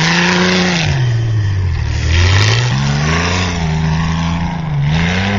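A motor vehicle's engine revving, its pitch swinging up and down several times as the throttle is blipped and released.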